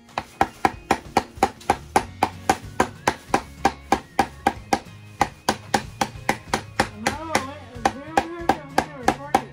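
A small hammer tapping nails into a wooden birdhouse kit: quick, even taps, about four a second. Background music plays under it.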